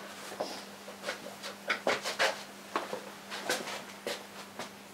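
Painting tools scraping and dabbing thick oil paint: a run of short, uneven scratchy strokes over a faint steady hum.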